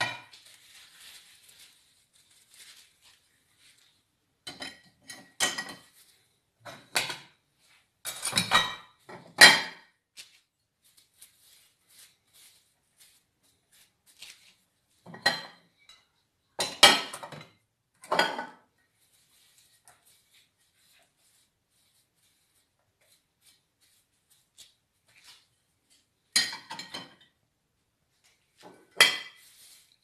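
Ceramic plates and cutlery clinking and knocking as they are handled and set into a dishwasher's coated wire rack. The clatter comes in three bouts with quiet pauses between.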